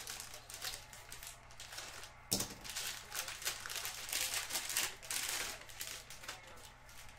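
Hands handling trading cards and their packaging: a run of short scraping, flicking and crinkling sounds, with a sharp knock a little over two seconds in.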